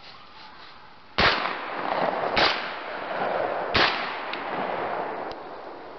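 A shotgun fired three times, about a second and a quarter apart, each shot followed by a long echo rolling back off the wooded hillsides.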